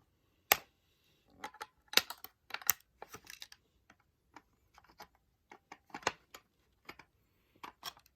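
Irregular sharp plastic clicks and rattles as Beyblade parts are worked free of the clear plastic bands holding them in their packaging. The sharpest click comes about half a second in, with busier clusters around two seconds and six seconds.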